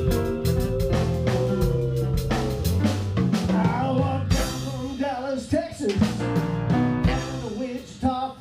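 Blues band jamming: drum kit keeping a steady beat under guitar, with a stepping low line and sustained, bending notes.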